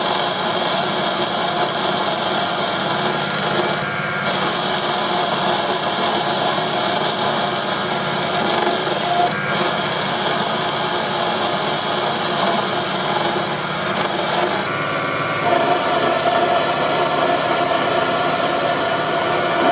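Proxxon PD 250/E mini lathe running while a turning tool cuts the end of a shaft down to M8 diameter, a steady machining whine. The cutting sound dips briefly three times as the cut changes between passes.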